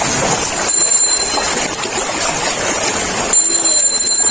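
Steady rush of floodwater, with two brief high-pitched ringing tones, one about a second in and one near the end.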